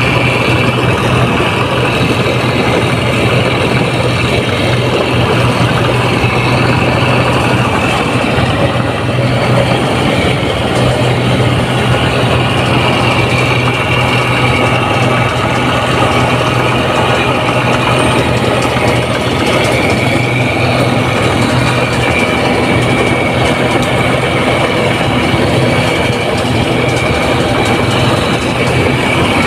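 Rice combine harvester's diesel engine running steadily and loudly, with a steady high whine over the low engine hum.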